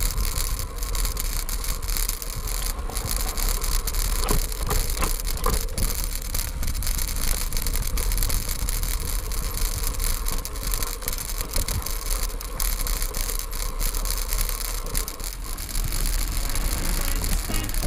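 Mountain bike ridden over a dirt trail: a continuous rattle and clatter of the bike over bumps, with wind buffeting the microphone as a steady deep rumble.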